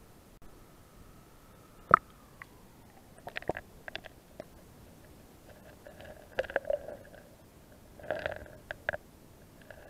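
Muffled underwater gurgling and clicking picked up by a camera submerged in a shallow, clear river, with one sharp knock about two seconds in and bursts of gurgles and clicks later on.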